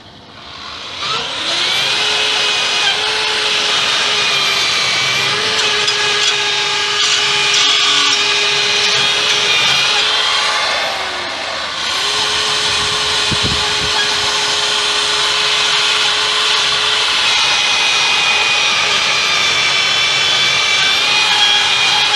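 Angle grinder with a wire brush spinning up about a second in and running, scrubbing the metal of a discharge chute to clean it for welding. A steady whine over the rasp of the brush, which sags briefly midway and comes back up, then begins to wind down at the very end.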